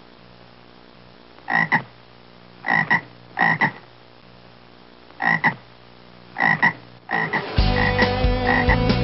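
Frog croaking in short two-part croaks, five of them spaced about a second apart. About seven seconds in, guitar music starts and more croaks continue over it.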